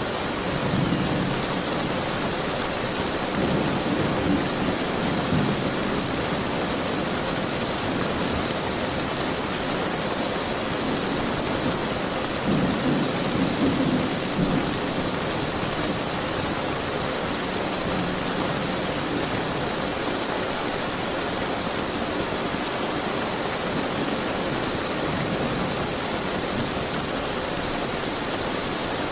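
Steady rain hissing evenly, with low thunder rumbling in several slow swells. The clearest swells come about a second in, around four seconds in and around thirteen seconds in.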